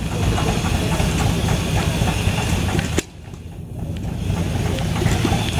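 Small engine of a miniature Rumely model tractor running steadily as it drives, a pulsing low sound throughout. A hiss over it drops away suddenly about three seconds in.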